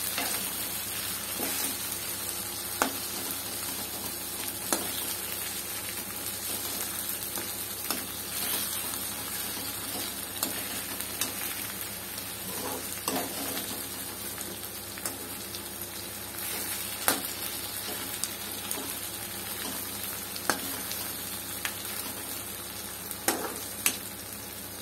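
Fish pieces with onion, tomato and green chillies sizzling in oil in a kadai while a steel spoon stirs them, the spoon now and then clicking and scraping against the pan.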